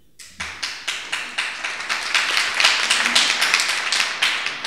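Audience applauding: a few separate claps at first, quickly building into a full round of applause that starts to thin out near the end.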